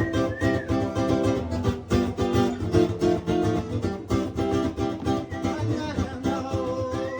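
Rock and roll music led by strummed guitar over a steady beat.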